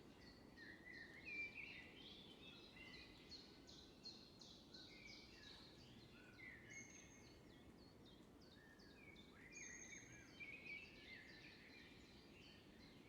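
Faint chirping and twittering of small birds: many short, overlapping calls and whistles, high-pitched, over a low background hum.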